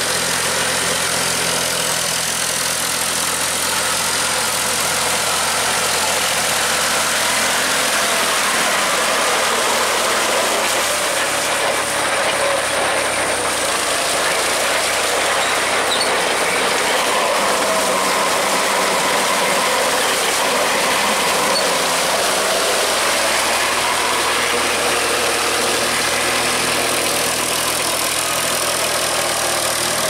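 Eicher 5660 tractor's three-cylinder diesel engine running steadily under load while driving a rotary tiller through wet paddy mud. The engine note dips and recovers slightly a few times as the load changes.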